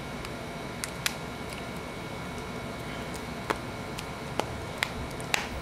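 iPhone 5 display assembly being pressed down into the phone's frame by hand, giving a series of small sharp clicks, about seven spread irregularly over several seconds, as its edges snap into place. A steady faint hum runs underneath.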